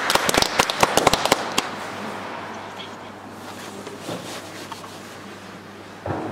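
Audience applause of many sharp separate claps that dies away about a second and a half in, leaving a faint steady hum of the hall, with a short louder sound near the end.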